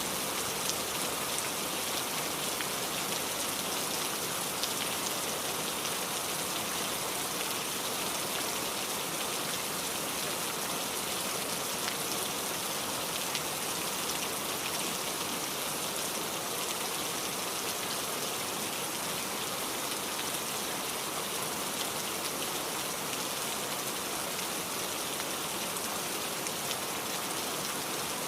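Steady rain: a dense, even hiss of falling rain with scattered light ticks of individual drops.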